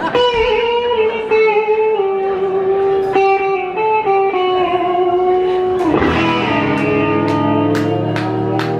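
Amplified electric guitars playing live: long sustained notes stepping slowly downward in pitch, then a fuller, lower chord rings in about six seconds in. A few sharp ticks sound near the end.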